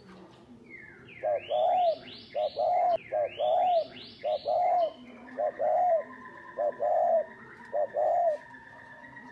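Spotted dove cooing, a repeated two-part low coo, a short note then a longer rounded one, given about seven times. In the first half a series of quick rising chirps from another bird overlaps it.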